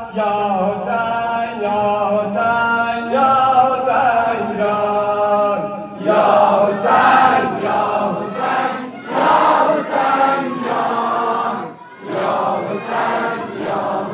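A nauha (mourning lament): one man's voice holds long sung notes, then about six seconds in a crowd of men joins in a louder, rhythmic chant, a beat roughly every half second.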